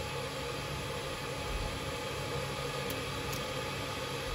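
Steady low hum with a faint hiss; two faint clicks about three seconds in.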